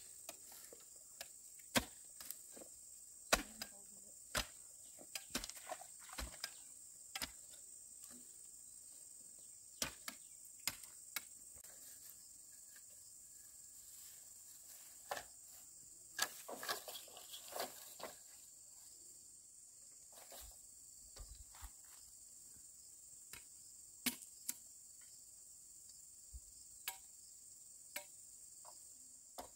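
Scattered sharp knocks and taps at irregular spacing, some in quick clusters, over a steady high-pitched insect drone.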